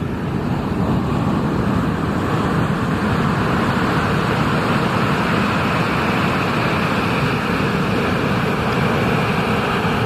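Loud, steady rushing of ocean surf and moving water. It swells up about half a second in and eases off near the end.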